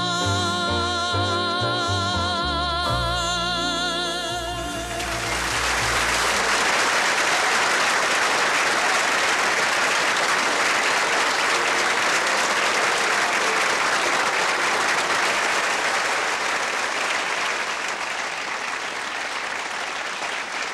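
A woman singer holds the song's final note with a wide vibrato over the orchestra's closing chords, ending about five seconds in. A studio audience's applause follows and runs on steadily, easing off a little near the end.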